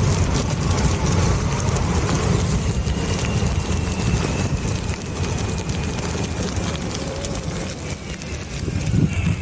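Pneumatic tyres of an all-terrain skateboard (mountainboard) rolling over a dirt and gravel path, picked up by a microphone mounted on the board: a steady, dense low rumble with wind noise on the microphone.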